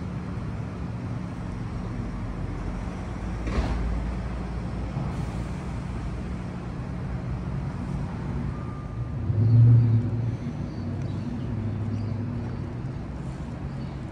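Steady rumble of downtown street traffic, with a louder vehicle engine swelling and fading about nine to ten seconds in and a brief knock about three and a half seconds in.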